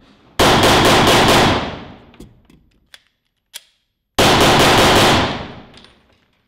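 9mm Glock 34 pistol fired one-handed in two rapid strings of five shots, about four seconds apart, each string ringing out in the range's reverberation. Between the strings come a few faint clicks as the empty magazine is dropped and a fresh one inserted.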